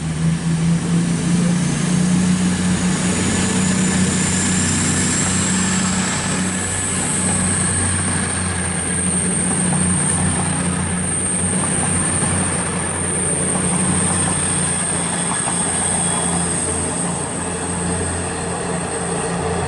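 East Midlands Trains Class 222 Meridian diesel multiple unit running along the platform, with a steady low diesel engine drone and rail noise. A thin high whine rises a few seconds in and then holds steady.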